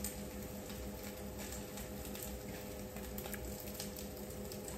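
Quiet kitchen background: a steady low hum with faint scattered clicks.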